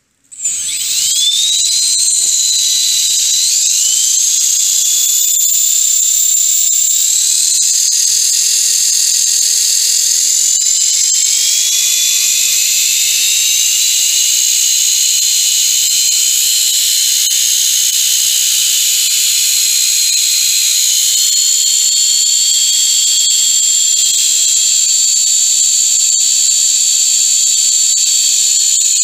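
T-Rex 450 RC helicopter's tail drive spinning with the tail blades off: a loud, high-pitched whine that starts abruptly about half a second in and jumps up quickly. Its pitch then creeps higher over the next dozen seconds and holds steady.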